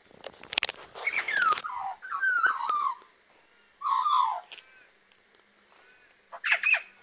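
Australian magpie calling: a run of warbling notes that fall in pitch over the first three seconds, another short falling call at about four seconds, and a brief harsh burst near the end.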